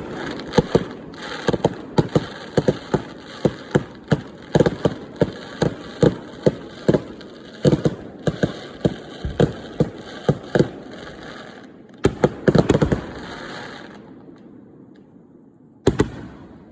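Fireworks display: a rapid barrage of sharp bangs, several a second, over a continuous hiss. It stops about three-quarters of the way through, and a single bang follows near the end.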